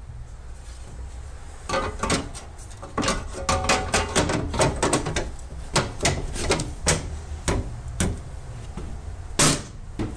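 Sheet-metal cover of a box on a vehicle transporter's bed being handled: a quick string of metal clicks and knocks, with one louder knock near the end.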